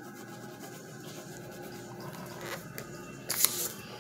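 Pen scratching and rubbing on paper while drawing, over a steady faint hum, with a louder brief rustle about three and a half seconds in.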